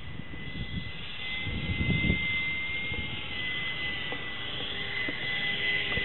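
Electric ducted fan of a foam RC jet whining high as it flies overhead, a steady tone whose pitch wavers slightly as the plane passes, over low wind rumble on the microphone.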